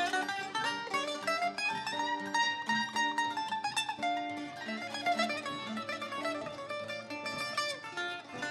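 Live rebetiko music: an instrumental passage of fast plucked-string notes, led by bouzouki over guitar accompaniment.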